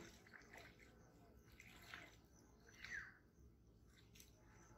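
Near silence: faint outdoor ambience with a few soft, brief sounds, the clearest a short falling chirp about three seconds in.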